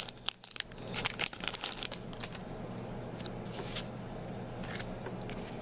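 Foil wrapper of a Pokémon card booster pack crinkling and tearing as it is opened by hand, in irregular crackles that are busiest in the first couple of seconds.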